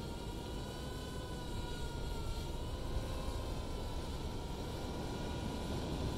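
Steady rush of wind and surf with a faint, slightly wavering whine from a bait-fishing drone flying out over the water.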